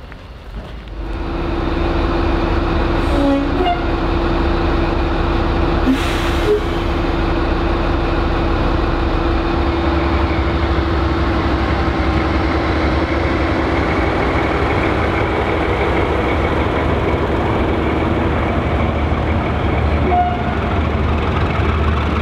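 Diesel locomotive engines running as a train hauled by the prototype HST power car 41001 and class 37 locomotive 37 075 moves slowly through the station. A loud, steady drone swells about a second in and holds, with one sharp knock about six seconds in.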